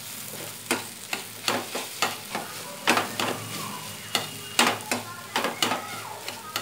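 A plastic spatula stirs and breaks up scrambled eggs with diced bell peppers and onion in a frying pan. Irregular scrapes against the pan, about one or two a second, sound over a steady sizzle.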